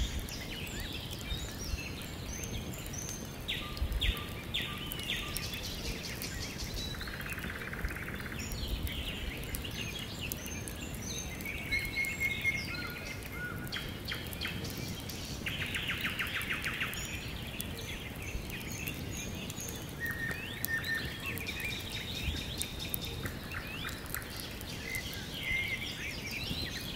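Several songbirds singing and calling at once, a dense mix of rapid trills, chirps and short whistled notes overlapping one another.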